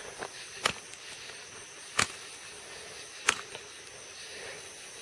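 Three sharp knocks, evenly spaced a little over a second apart: a still-living gigged frog being struck on a rock to kill it.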